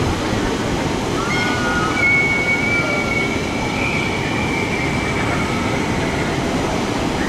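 Log flume ride: a steady rush of water running down the channel with the boat, and from about a second in a long thin high squeal that holds to the end.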